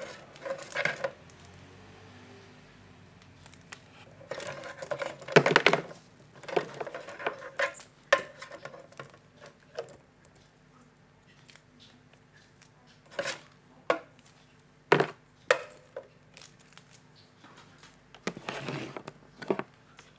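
The cables and plastic connectors of a Cougar CMD 500W semi-modular power supply rattling, clicking and rustling as they are handled and sorted. The noise comes in irregular spells, with a few sharp single clicks.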